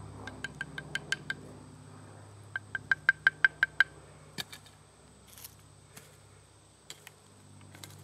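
Two quick runs of sharp, ringing wooden taps, about six a second, the second run louder, as a piece of wood is knocked by hand against a resinous fatwood bearing block. A few scattered clicks of handling follow.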